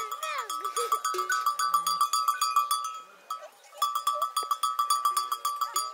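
Livestock bells clanking rapidly and continuously on one ringing pitch, breaking off briefly about three seconds in. A bleat sounds in the first second.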